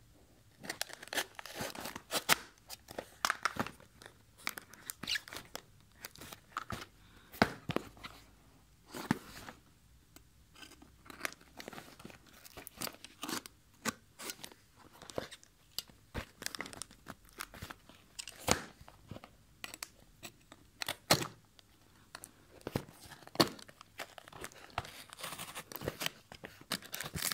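A knife cutting through packing tape on a small cardboard box, with the tape tearing and the cardboard crackling and scraping in irregular strokes.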